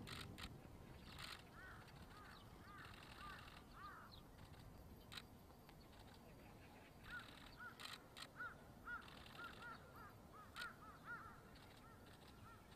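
Faint birds calling in many short rising-and-falling notes, in clusters, busiest in the second half, with a few sharp clicks over a low background hiss.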